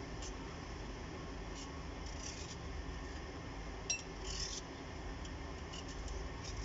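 Hand peeler scraping the green skin off watermelon rind: a handful of short, quiet rasping strokes, with a light click about four seconds in.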